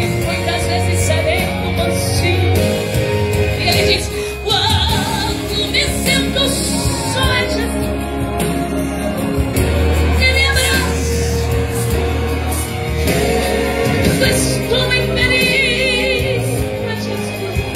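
Live gospel song: a woman sings into a handheld microphone over instrumental accompaniment.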